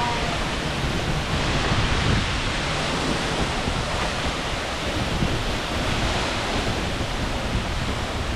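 Steady rush of Seljalandsfoss waterfall's falling water, with wind buffeting the microphone.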